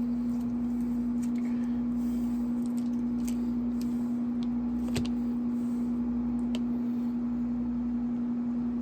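Air conditioner running with a steady, even hum, with a few faint clicks now and then.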